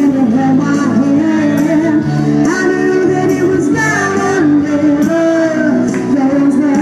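A woman singing a song live into a handheld microphone, over a recorded backing track played through the PA, with sustained notes that bend between pitches.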